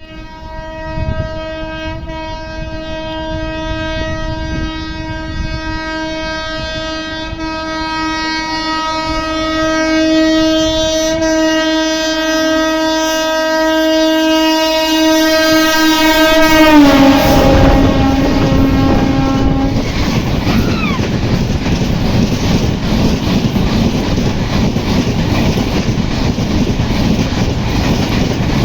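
WAP7 electric locomotive horn sounding one long unbroken blast as the express approaches at full speed, growing louder, its pitch dropping sharply about 17 seconds in as the locomotive passes and the horn stopping a few seconds later. Then the rush and clickety-clack of the coaches speeding past.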